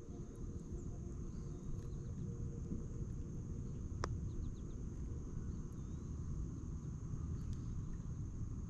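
Quiet outdoor ambience: a steady high insect drone with a few faint bird chirps over a low rumble, and a single sharp click about four seconds in.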